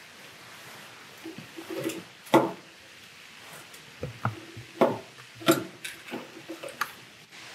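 Hands handling wires and a small connector on a tabletop: a series of brief, irregular clicks, taps and light knocks.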